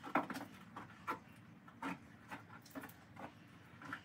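Irregular light knocks and scrapes, a few a second, from hand work at the top of a boat's transom as the poured transom compound is pushed into place.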